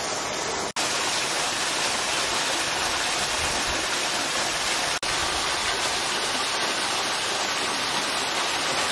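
Small waterfall spilling off a rock face into a pool: a steady, even rush of falling water. It breaks off for an instant twice, just under a second in and at about five seconds.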